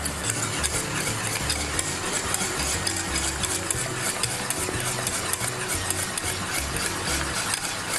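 Wire whisk beating rapidly against a metal saucepan, a continuous scraping and clicking, as a yogurt sauce thickened with flour and tahini is stirred constantly over the heat to keep it from lumping or splitting.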